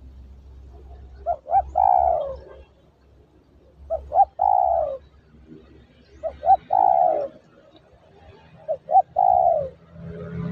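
Spotted dove cooing: four calls about two and a half seconds apart, each two short notes followed by a longer falling coo.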